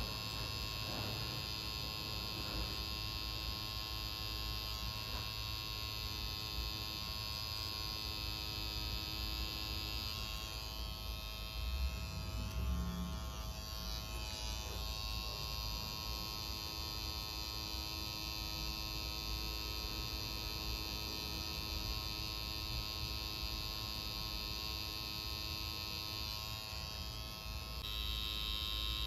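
Tattoo machine buzzing steadily as red ink is worked into skin. The buzz weakens for a few seconds midway, with a couple of low bumps, then picks up again.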